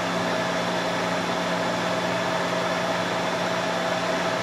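Three-phase electric motor of a milling machine running steadily with no belts on at about 1750 rpm, powered from single-phase supply: an even hum and whir with a steady whine.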